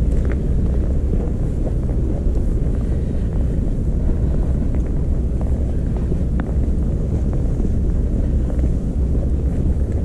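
Storm wind buffeting the microphone in a blizzard: a loud, steady, low rumble.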